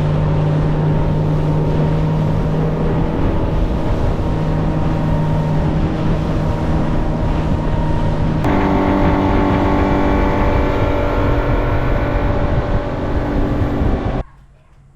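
Small boat's outboard motor running steadily under way, with wind and water noise. Its pitch shifts abruptly about eight seconds in, and the sound cuts off suddenly near the end.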